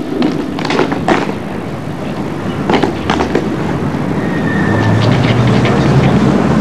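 Scattered sharp cracks: a few about a second in, then a quick run of four near the middle. A low rumble builds toward the end.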